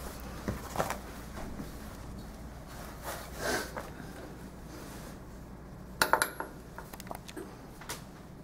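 A few small metallic clinks and knocks, scattered, with the loudest quick cluster of sharp clinks about six seconds in.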